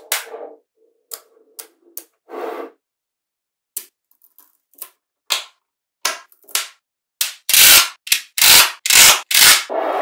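Magnetic balls clicking and clacking as blocks of them are set down and snapped against each other: scattered sharp clicks at first, then a louder, quicker run of snaps in the last few seconds.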